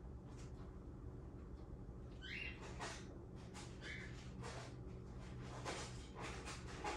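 Faint clicks and rustling from a power cord being handled and plugged in, with two short high squeaks, the first rising, about two and four seconds in, over a steady low hum.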